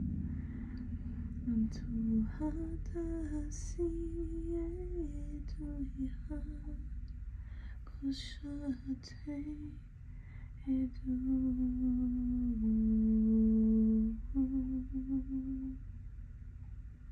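A woman humming a slow, wordless tune in long held notes that step up and down in pitch, the longest and loudest note coming a little after the middle.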